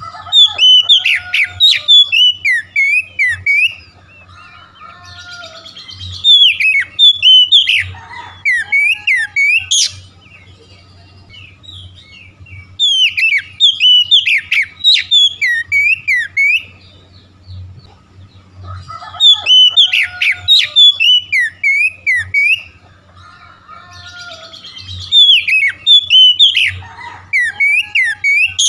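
Oriental magpie-robin singing in six loud bursts of rapid, fluttering whistled notes, with short pauses between them. A faint low hum runs underneath.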